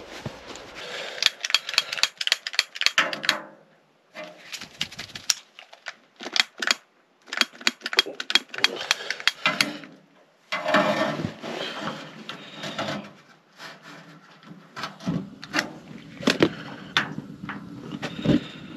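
Irregular clusters of sharp clicks and knocks with rustling between them: hands handling the heater and gear inside a small ice-fishing tent while lighting the heater.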